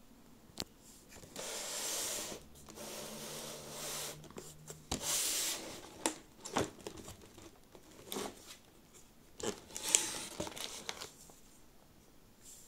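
Plastic shrink wrap being torn and pulled off a cardboard motherboard box, tearing and crinkling in several spells, with sharp taps and clicks from the box being handled.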